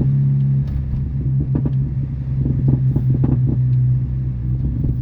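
Straight-piped Mini Cooper S exhaust with the engine running at a steady pitch, broken by repeated sharp crackles and pops, most frequent around the middle.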